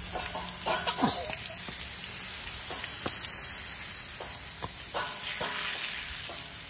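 Garden hose spray nozzle hissing steadily as a fine spray of water hits a horse's wet coat, with a few short knocks.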